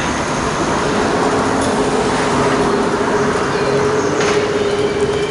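Loud city traffic noise from a large vehicle running close by, with a steady droning tone held through most of it.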